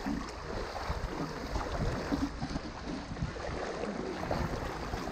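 River water sloshing and splashing steadily around legs wading through a knee-deep, shallow river.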